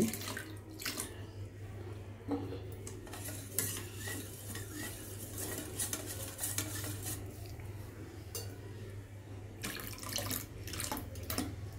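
Wire whisk beating thinned curd in a stainless steel bowl: light, irregular clicks and scrapes of the whisk wires against the metal, over a steady low hum.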